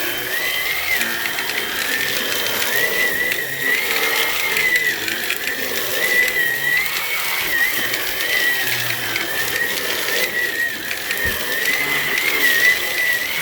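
Hoover Onepwr Blade cordless stick vacuum running at full speed while its power head cleans stair steps. The motor gives a steady whine whose pitch dips and recovers slightly every second or two under a hiss of airflow and brushroll.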